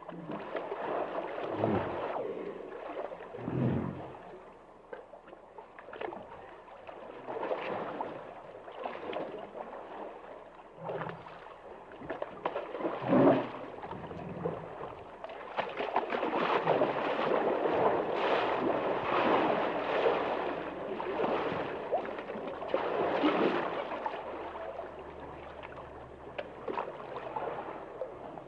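Hippopotamus in water: irregular gurgling and sloshing with several deep surges, the loudest about 13 seconds in. The water noise grows denser and louder in the second half.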